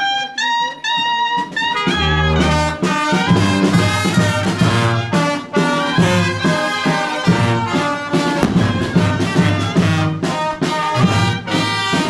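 Brass band, with trumpets and a sousaphone, playing a march-like tune. A few high melody notes open it, and the deep bass notes and full chords come in about two seconds in.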